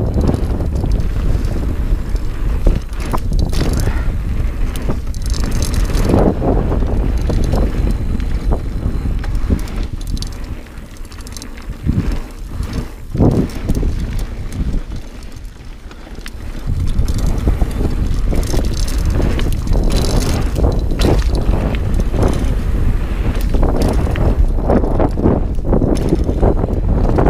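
Dartmoor Primal hardtail mountain bike ridden fast down a dirt singletrack: tyres rumbling over the dirt, wind buffeting the camera microphone, and the bike knocking and rattling over bumps. The rumble eases for several seconds a little before halfway, then comes back at full loudness.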